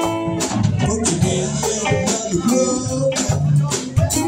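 Live band music: electric guitar and bass guitar over drums, with hand-played conga drums striking steadily throughout.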